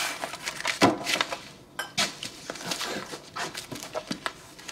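Books and papers being gathered up and stacked by hand: a run of short knocks, thuds and rustles.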